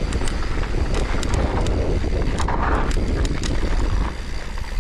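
Wind buffeting the microphone of a camera carried on a moving mountain bike, a steady heavy rumble, with tyres on a dirt trail and scattered sharp clicks and knocks from the bike.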